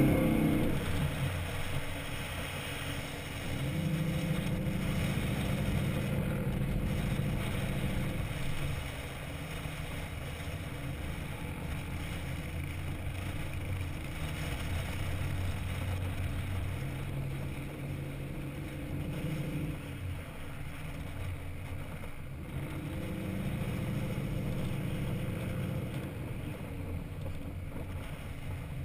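Chevy Avalanche's V8 with a Flowmaster exhaust running as the truck drives over sand. The engine note swells under throttle a few seconds in, eases off, and swells again near the end, heard from the hood of the truck.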